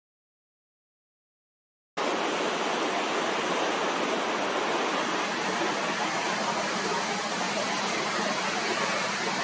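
Silence for about two seconds, then a steady, loud rushing noise of sea surf and breeze picked up outdoors by the camera's microphone.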